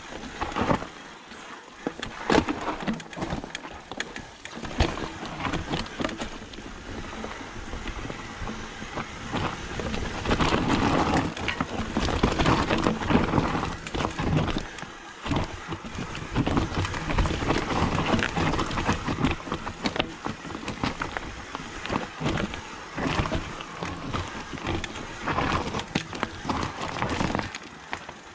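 Mountain bike rolling fast down a rocky trail: tyres grinding over loose stone, with the bike rattling and knocking over bumps.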